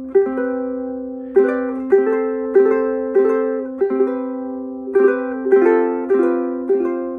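Cedar-top concert ukulele played fingerstyle: plucked notes and chords that ring on between attacks.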